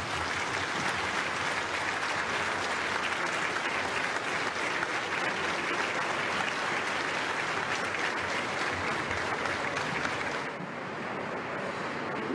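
Audience applauding steadily, easing off to lighter clapping about ten seconds in.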